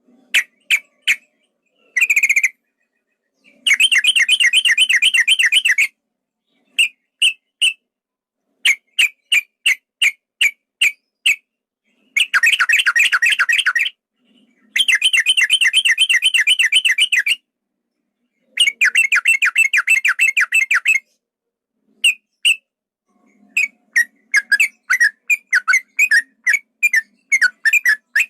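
Male yellow-vented bulbul (trucukan) singing long rapid-fire runs of repeated chattering notes, each run lasting two to three seconds, broken up by short groups of separate quick notes. This is the long 'ropel' song used to provoke other males.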